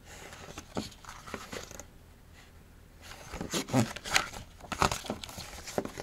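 Pages of a thin softcover picture book being handled and turned: paper rustling and crinkling, light at first and busier and louder in the second half as the pages flip over.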